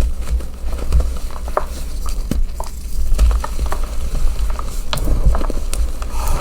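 Gym chalk chunks being crushed and crumbled by hand, giving a run of small irregular crunchy crackles, with a steady low rumble underneath.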